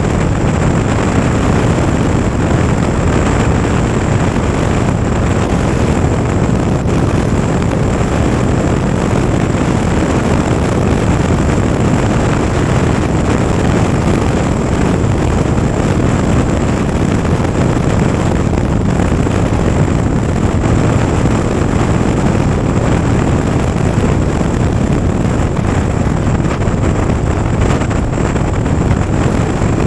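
Motorcycle engine and exhaust running at a steady cruise, mixed with a constant rush of wind and road noise, with no revs rising or falling.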